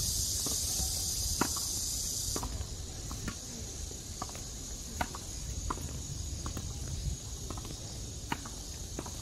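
Tennis balls being struck by rackets in a fast rally: a string of sharp pops, about one every half second to a second. Under them, insects buzz high and steady, and the buzz drops away about two and a half seconds in.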